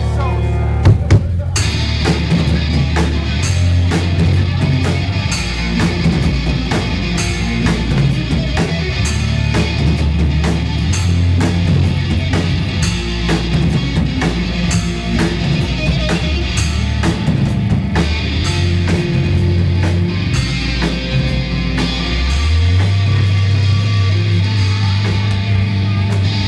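Rock music led by a full drum kit over a low bass line that steps between notes. The drums come in hard about one and a half seconds in, and the beat drives on steadily.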